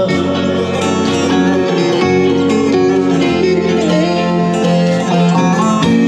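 Instrumental break in a Turkish folk song: a plucked string instrument plays a quick melody over a sustained low accompaniment, with no singing.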